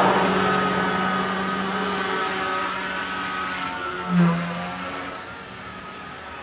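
Blade mCP X BL micro RC helicopter in flight: the brushless motor and spinning rotors give a steady buzzing hum with a thin high whine. It fades as the helicopter flies off, with a brief louder, lower note about four seconds in.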